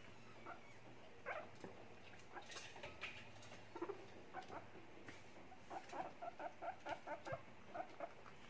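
Abyssinian guinea pigs chewing lettuce: faint, short crunching bites, coming in a quick run of about three or four a second in the second half.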